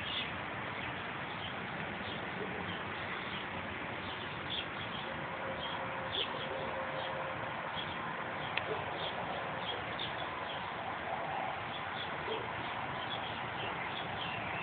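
Small birds chirping in short, scattered notes over a steady background hiss, with one sharp click about eight and a half seconds in.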